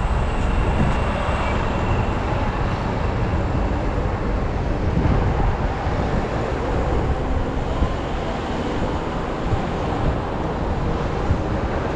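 Steady city street traffic noise, with low wind rumble on the microphone.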